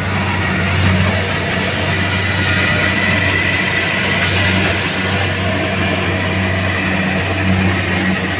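Rice combine harvester running steadily: a constant low engine hum with machinery noise over it and a faint high whine.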